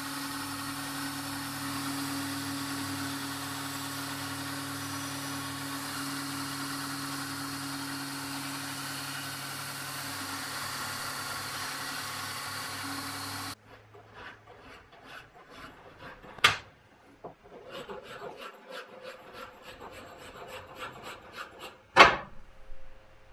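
Belt grinder running steadily with a steel blade pressed against the belt. It cuts off suddenly just over halfway through, giving way to even strokes of a hand file on steel, about two to three a second, broken by two sharp knocks.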